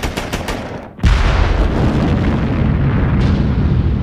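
Rapid machine-gun fire, about seven shots a second, stops about a second in. A heavy explosion breaks in at once, and its deep rumble goes on.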